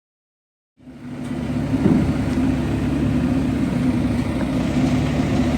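A heavy road vehicle's engine running steadily at low revs, cutting in suddenly after silence about a second in.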